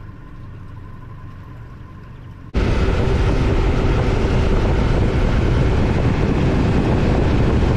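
A low, steady rumble, then, about two and a half seconds in, a sudden loud rush of boat motor and wind noise as the boat runs across the water.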